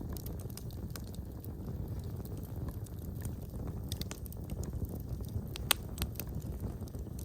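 Wood fire crackling in a fireplace: a steady low rumble of burning with scattered sharp pops, one louder pop more than halfway through.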